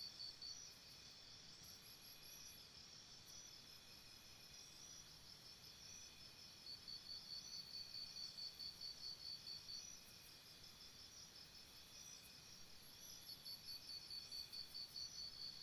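Crickets chirping faintly. One cricket gives a regular high chirp about four times a second in runs of a few seconds, stopping and starting again twice, while other crickets chirp more softly underneath.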